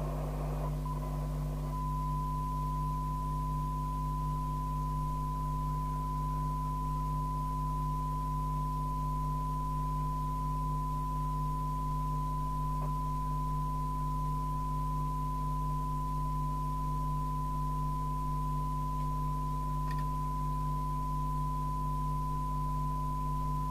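A single steady test tone from the Harrier CBX CB radio's receiver as it picks up a modulated signal from a signal generator, over a constant low hum. It cuts in about two seconds in, after a short stretch of receiver hiss.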